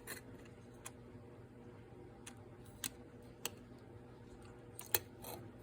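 Lego plastic pieces clicking and tapping as they are handled, a handful of sharp, separate clicks spaced irregularly over a few seconds.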